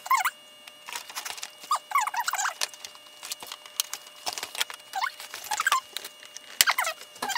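Toy packaging being handled: short clusters of squeaks from plastic rubbing on plastic and cardboard, with scattered clicks and crackles, as toy dinosaurs are cut free of their zip ties and the plastic tray is pulled from the box.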